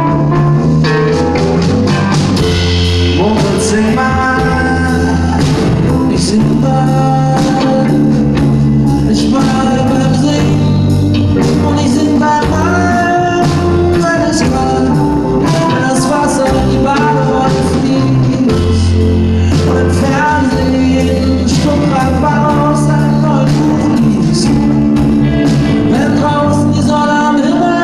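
Band playing a pop-rock song: singing over electric guitar and drums with a steady beat.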